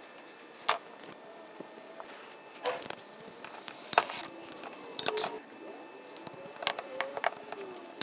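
Hand tools stripping wire ends and crimping bootlace ferrules onto them: sharp clicks and handling noise, some in quick clusters about three seconds and seven seconds in, typical of a ratcheting ferrule crimper.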